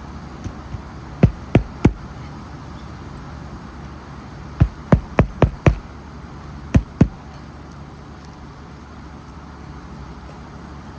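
Hammer blows driving roofing nails through asphalt shingles: sharp knocks in quick groups, three a little over a second in, five in a row around the middle, then two more, over a steady low hum.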